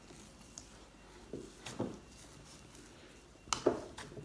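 Hands kneading soft glutinous rice flour dough in a plastic mixing bowl: a few short, soft squishes and knocks.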